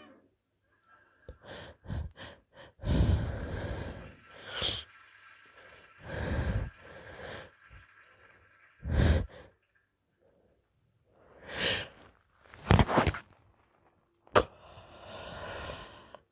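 A woman's sniffly sneezing fit: quick sniffles, long breathy gasping build-ups, and several short stifled sneezes.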